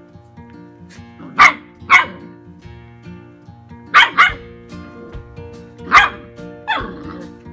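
Puppies barking during rough play: six short, sharp barks in three pairs a couple of seconds apart, over acoustic guitar background music.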